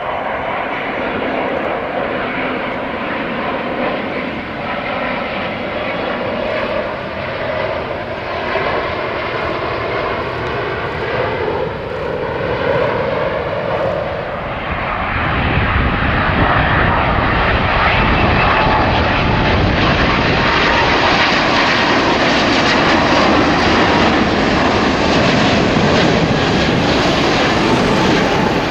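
Jet airliner on final approach with its gear down, an Airbus A350-900 with Rolls-Royce Trent XWB engines, flying low overhead. Its engine noise carries tones that slide in pitch while it approaches, then grows into louder, steady jet noise about halfway through as it passes close.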